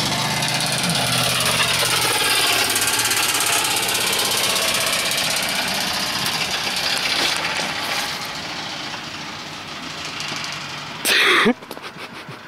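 Chevy pickup truck driving past with zip ties on its driveshaft slapping underneath in a loud, rapid jackhammer-like clatter over the engine, fading as it pulls away. A short, very loud burst with falling pitch comes near the end.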